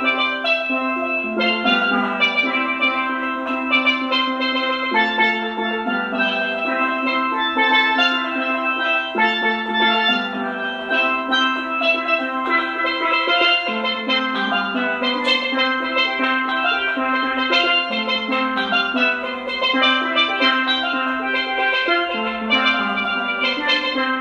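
Steel pans playing a melody of quick struck notes, each ringing with overtones, over a lower note that keeps returning.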